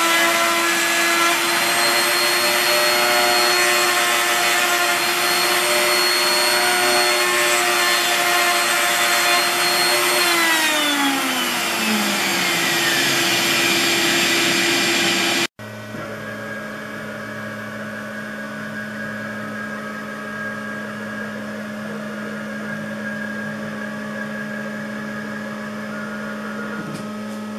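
Router motor of a home-built CNC router running steadily with a shop vac pulling dust off the cut. About ten seconds in, one motor's pitch slides down as it winds down while the suction noise carries on. After a sudden break about halfway, a quieter steady machine hum continues.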